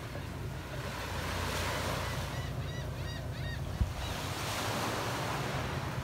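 Small waves washing onto a sandy shore, swelling twice, with wind rumbling on the microphone. A short run of high calls comes a little past the middle, followed by a single brief knock.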